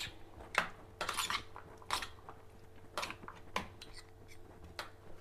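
Steel spoon clinking and scraping against a stainless steel plate while stirring a soft mashed-potato mixture, in sharp, irregular knocks about once a second.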